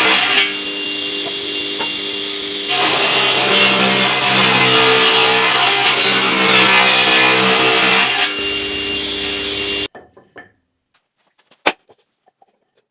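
A power saw cutting wood: the motor runs steadily and the cutting noise swells and eases as the stock is fed through. It cuts off abruptly about ten seconds in, followed by near silence and a single sharp click.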